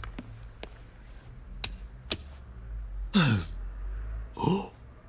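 A few light clicks, then two short wordless vocal noises from a man, the first sliding down in pitch and the second a brief grunt-like sound.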